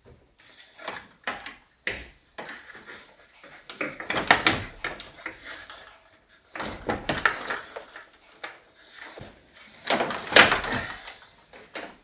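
A plastic fan cowl with the viscous cooling fan inside it is being worked up and out of the engine bay, giving irregular scraping, rattling and knocks of hard plastic against the parts around it, in several bursts.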